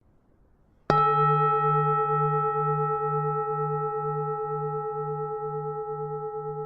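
Buddhist temple bell struck once about a second in, then ringing on with a low hum that pulses about twice a second and fades slowly.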